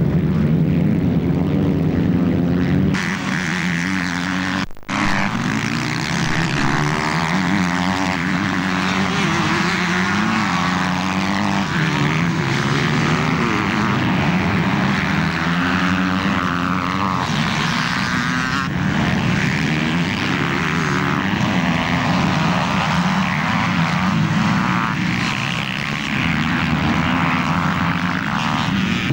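Motocross bike engines running and revving, their pitch wavering up and down as the bikes ride off across the field. The sound breaks off for a moment about five seconds in.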